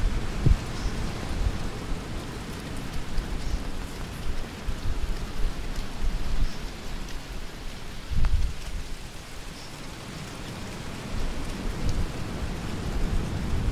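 Wind buffeting the microphone: a gusty low rumble over a steady outdoor hiss, with the strongest gusts about half a second in and around eight seconds in.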